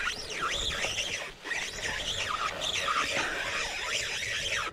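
Spinning reel being cranked against a strong fish on the line, whining in a wavering, rising and falling pitch as the handle turns; it stops suddenly at the end.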